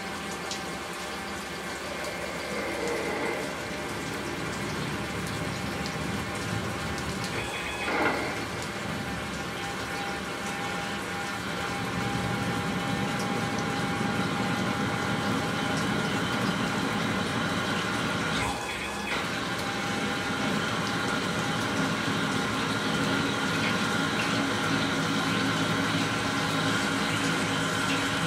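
Tormach CNC lathe drilling a hole with a large drill under flood coolant: coolant spraying and splashing against the enclosure window over steady machine tones from the spindle. It grows louder about twelve seconds in, with a sharp click about eight seconds in and a brief break near eighteen seconds.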